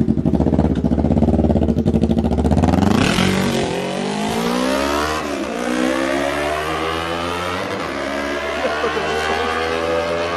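Motorcycle engine through an Austin Racing aftermarket exhaust, idling with a choppy, pulsing note, then revved up about three seconds in. The revs drop back briefly, then climb slowly and are held high.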